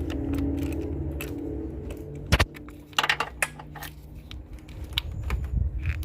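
Socket wrench working the positive battery terminal clamp loose: irregular metallic clicks and clinks, with one sharper knock a little over two seconds in, over a steady low hum.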